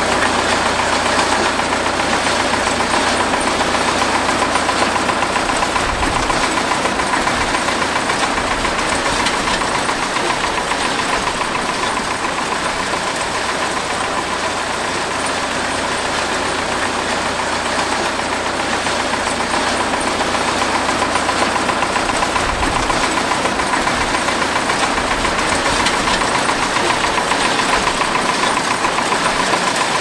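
A motor running steadily with an even, unbroken hum and no distinct knocks or changes in speed.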